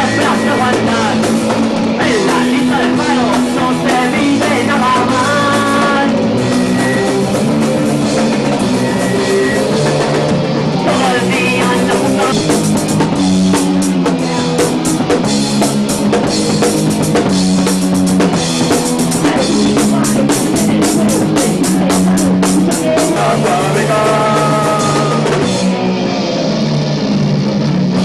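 Rock band playing live: drum kit, electric guitar and bass guitar. Near the end the drums stop and the guitar carries on alone.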